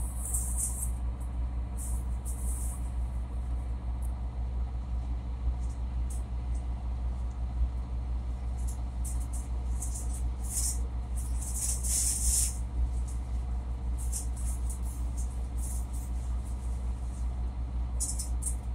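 A boat's diesel engine running steadily under way, a low, even drone, with a few short bursts of high hiss over it.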